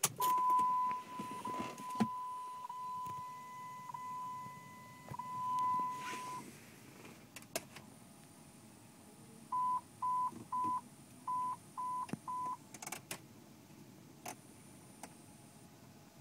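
Electronic tone and clicks from the automatic zone control climate system of a 2001 Jeep Grand Cherokee Limited (WJ) as it switches modes. A steady high beep holds for about six seconds, then a few sharp clicks, then six short beeps in two sets of three. It is an odd noise that the owner has heard ever since a dealer repaired the blend door.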